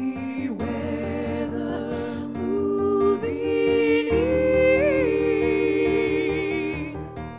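Upper-voice (SSA) choir singing with piano accompaniment: the voices hold long notes with vibrato, stepping up twice near the middle and swelling louder, over steady repeated piano chords.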